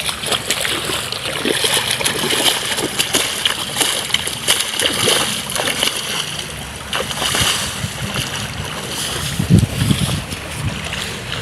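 Irrigation water running along a shallow earth channel, with splashes and scrapes from a spade digging mud out of the water to block and divert the flow. A heavier splash comes about nine and a half seconds in.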